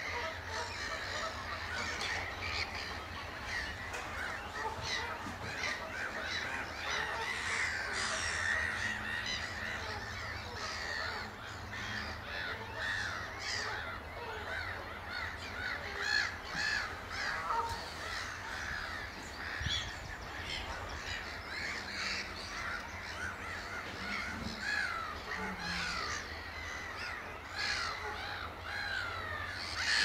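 Many birds calling at once: a dense, continuous chorus of short harsh calls overlapping throughout, over a low steady hum.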